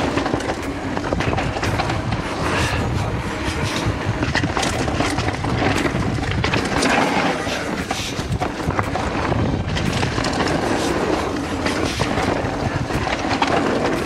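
Mountain bike rolling fast down a dirt trail: tyres rumbling over dirt, rocks and roots, with frequent clicks and knocks as the bike rattles over the bumps.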